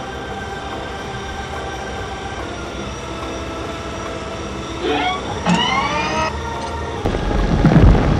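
Cartoon vehicle sound effects: a steady hum of held tones, then two quick rising swoops in pitch a little after halfway, and near the end a louder, rough engine rumble starts up.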